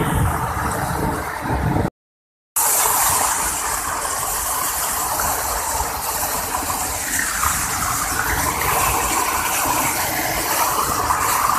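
Water rushing down a dam spillway, then, after a short dropout about two seconds in, a loud, hissy cascade of water pouring and splashing right over the camera.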